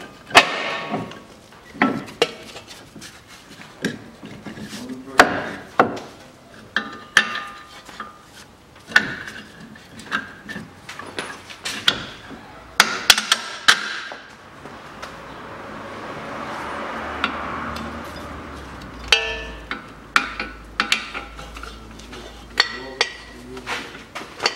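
Irregular metal clanks, knocks and clicks of tools and suspension parts being handled at a car's front hub and steering knuckle, a few of them ringing briefly. For a few seconds past the middle a soft rushing noise swells and fades.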